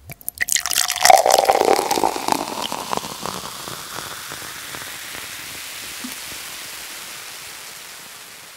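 Noisy intro sound effect: a loud crackling burst with a brief tone in the first two seconds, settling into a steady hiss that slowly fades away near the end.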